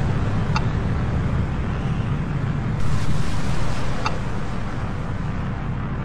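Deep, rumbling ambient drone of a cinematic intro soundtrack, with a hissing swell about three seconds in and two faint, brief sparkling chimes.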